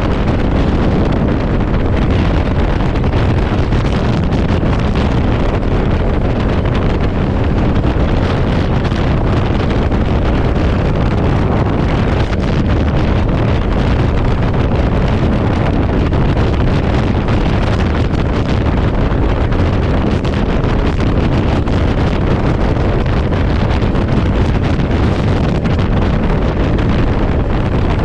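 Heavy wind buffeting on the microphone of a moving motorcycle, with its engine and road noise underneath. The mix stays steady and loud throughout.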